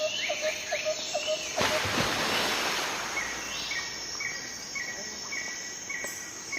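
Outdoor wildlife sounds: birds or insects calling in short, evenly repeated notes over a steady hiss. The hiss swells suddenly about a second and a half in.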